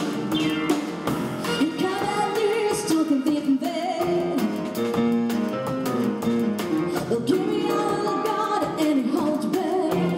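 A woman singing a jazz song into a microphone, accompanied by a string ensemble of violins and cellos, with drums keeping a light beat.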